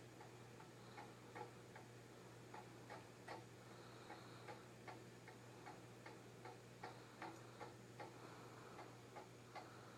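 Faint, steady ticking, about two and a half ticks a second, over a low steady hum.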